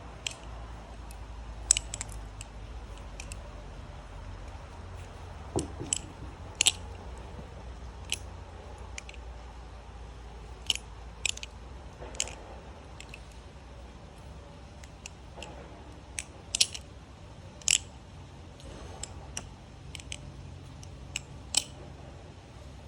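Balisong (butterfly knife) being flipped: irregular sharp metallic clicks and clacks as the handles swing around the pivots and snap against each other, about a dozen over the span, with a low steady hum underneath.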